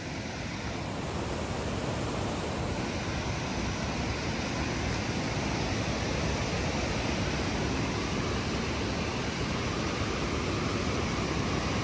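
Water rushing over a waterfall: a steady, even noise.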